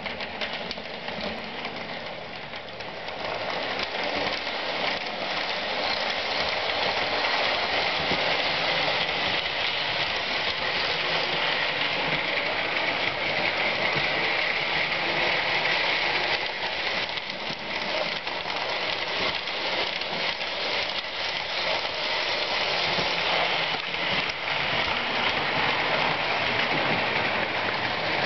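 Lionel 1872 General toy locomotive and its cars running on three-rail O-gauge track: a steady rattling whir of wheels and electric motor with fine clicking over the rail joints, growing louder over the first few seconds.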